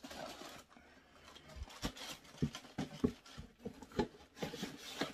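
Cardboard shoe boxes being handled and moved: a string of irregular knocks and thumps with rustling in between.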